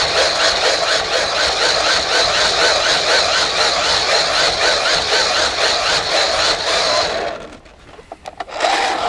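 Battery-powered tool running with a steady high whine and a rasping noise that pulses about three or four times a second. It cuts out about seven seconds in and starts up again just before the end.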